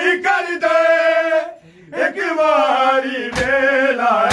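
Men chanting a Punjabi noha together in a mourning recitation, with a short pause about one and a half seconds in. About three seconds in, a single sharp slap cuts through, of the kind made by matam, a hand striking a bare chest.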